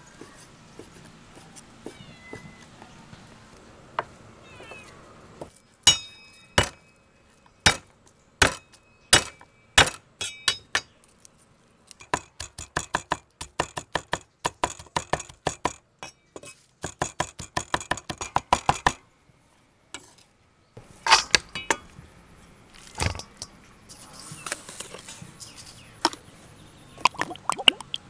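A steel cleaver chopping on a thick wooden chopping block. First come single heavy chops with a metallic ring, then fast chopping of garlic cloves at several strokes a second, then scattered knocks and clinks.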